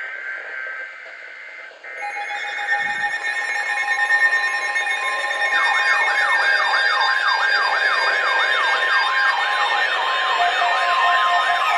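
Electronic alarm: a stack of steady high tones starts about two seconds in, and a rapid yelping siren, sweeping up and down about three times a second, joins near the middle.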